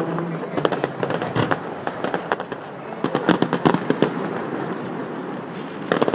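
Fireworks going off: a dense, irregular run of sharp pops and crackles, growing louder near the end.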